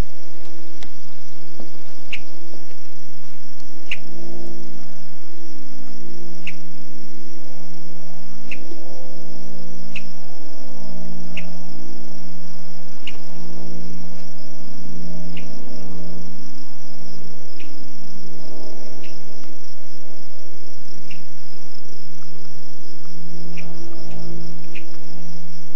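Insect chorus: a steady, high, pulsing trill, with short high chirps every second or two and a low, uneven hum beneath.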